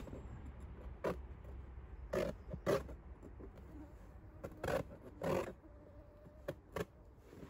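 A stiff felt sheet being handled and worked against a wooden frame, making a series of short scraping and rustling strokes over a low steady rumble.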